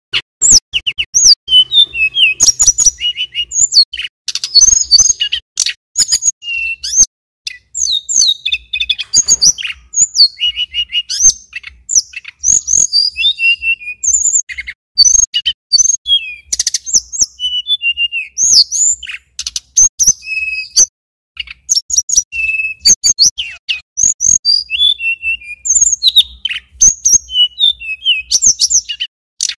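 Male tledekan gunung (sulingan gunung) singing continuously: a fast, loud string of short high whistled chirps, slurred notes and rapid trills with hardly a pause.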